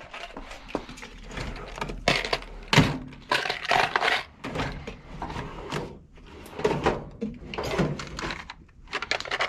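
Things being handled, moved and set down, making irregular knocks, clatters and scrapes.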